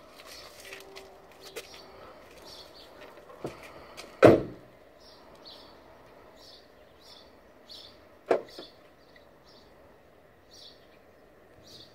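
A Renault Mégane III's driver door slams shut about four seconds in. About four seconds later comes a sharper single clunk of the car's central locking, set off from the phone app. Small birds chirp repeatedly throughout.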